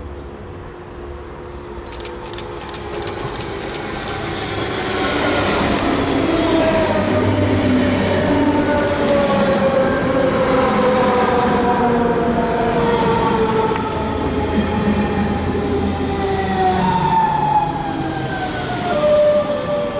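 A class 425 S-Bahn electric multiple unit passing close by along the platform, with the rumble of wheels on rails. Its traction motors give a whine of several tones that slide steadily down in pitch, and a fresh set of higher tones starts and falls near the end.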